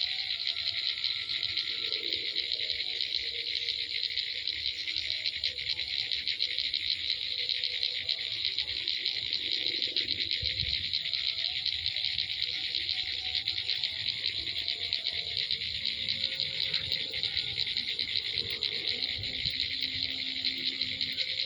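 Swiftlets twittering: a dense, steady chorus of fast high chirps.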